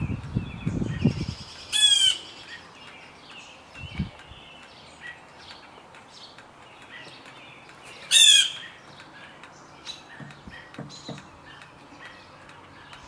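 Blue jay giving two loud, harsh calls about six seconds apart, over fainter bird chirps. There is a low rumble in the first second or so.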